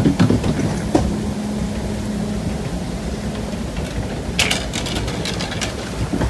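Log-flume ride boat travelling along its water channel: a steady rumble of rushing water and the moving boat, with a few knocks near the start and a short clatter about four and a half seconds in.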